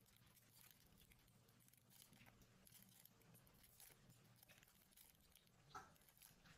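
Near silence with faint scattered rustles and soft clicks of hands wrapping a pastry dough strip around a foil-covered cone mold, one slightly louder rustle near the end.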